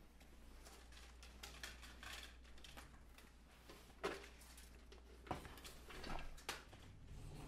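Faint handling noises from a person shifting in a desk chair and moving things about: soft rustling, with a few sharp clicks and knocks about four, five and six seconds in, over a low steady hum.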